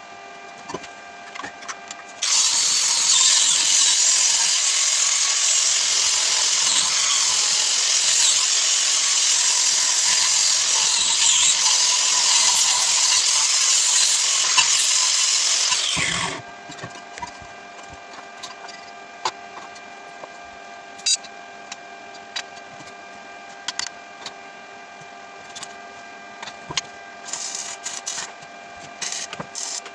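A power tool runs loudly for about fourteen seconds, starting a couple of seconds in and stopping abruptly, followed by scattered light clicks and taps of hand work.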